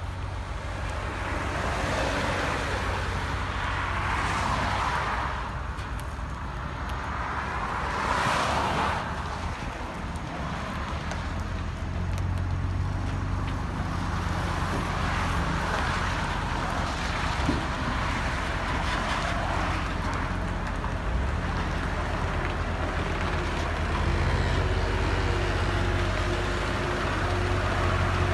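Traffic passing on the highway, two vehicles swelling past in the first ten seconds. Then, from about twelve seconds in, a heavy diesel engine runs steadily at a low, even pitch.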